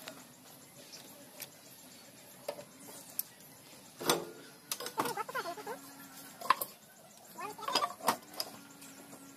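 Irregular metallic clicks and clinks of a T-handle socket wrench working the bolts on a Sifang power tiller's gearbox casing, undoing them to open the gearbox. The loudest knock comes about four seconds in, with a run of clinks after it.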